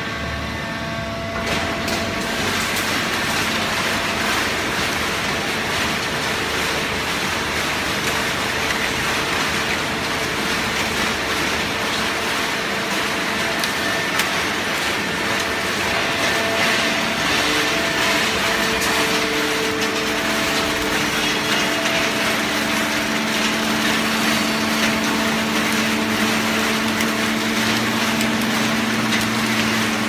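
Fully automatic horizontal hydraulic baling press running: a steady mechanical drone from its hydraulic power unit and drive motor, with several held hums. A deeper hum grows stronger about two-thirds of the way through.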